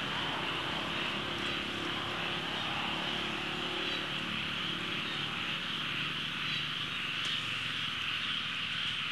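Steady, high-pitched chorus of small calling animals in the surrounding vegetation, unbroken throughout, with a low steady rumble underneath.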